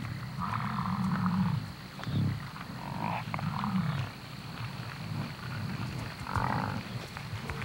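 American bison giving repeated low grunting calls, each lasting about a second, with shorter higher-pitched calls over them about a second in, around three seconds and just after six seconds.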